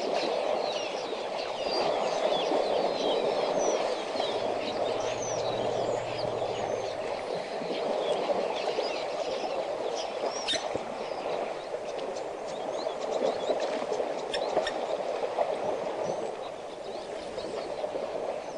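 Water sloshing and splashing as elephants wallow in a muddy waterhole, a steady rushing noise, with small birds chirping over it.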